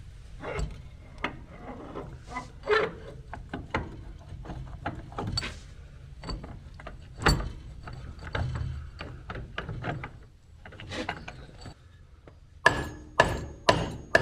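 Metal hub parts being handled and fitted, with scattered clicks, clinks and knocks. Near the end come four sharp hammer blows with a metallic ring, driving a part into place on the tractor's front hub.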